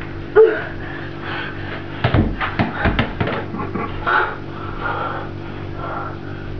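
A rugby ball dropped and bouncing on a stone-tiled floor, giving a few dull thuds about two to three seconds in, among a toddler's footsteps. A short child's vocal sound comes near the start, over a steady low hum.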